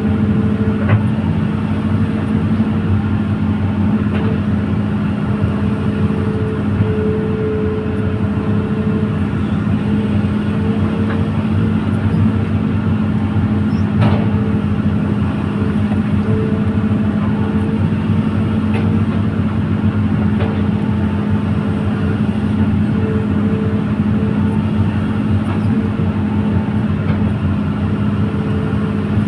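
Excavator diesel engine running at a steady speed: a constant low drone with a higher hum above it. One sharp click about halfway through.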